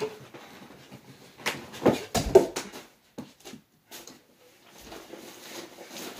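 A jump off a bed and a two-handed dunk on an over-the-door mini basketball hoop: a quick run of knocks and rattles about one and a half to two and a half seconds in, ending in one heavy floor-shaking thud as the jumper lands. A few softer knocks follow.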